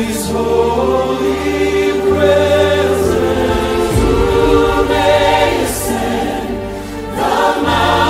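Background choral music: a choir singing long sustained chords over deep bass notes that change every couple of seconds.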